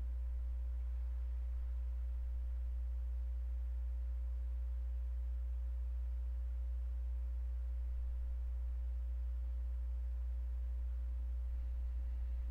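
Steady low electrical hum, with a few fainter steady tones above it.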